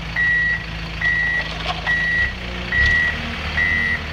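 Reversing alarm on a heavy yard vehicle beeping a single high steady tone about once a second, five beeps in all, over the low running of the vehicle's engine.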